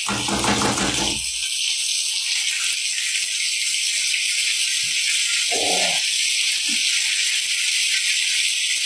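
Hot oil sizzling steadily in a frying pan on a gas hob as an egg is cracked into it.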